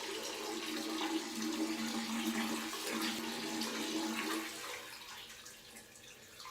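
Water rushing through household plumbing with a steady low pipe hum. It starts suddenly and eases off after about four and a half seconds.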